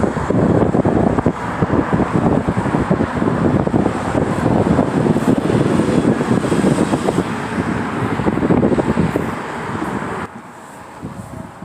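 Wind buffeting the microphone: a loud, fluttering rumble that drops off abruptly about ten seconds in.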